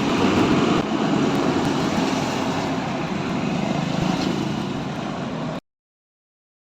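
Steady motor vehicle engine and traffic noise, which cuts off abruptly near the end.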